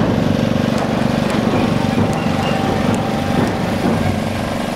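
Small engine running steadily, a petrol generator of the kind carried on a neputa float to power its lights.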